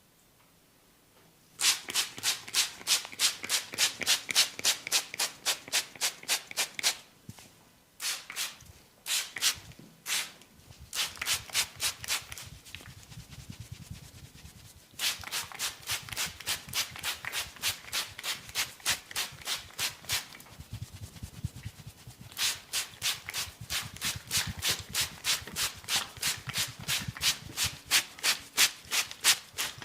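Hands massaging a head, quick rhythmic rubbing strokes about four a second, in several runs with short pauses.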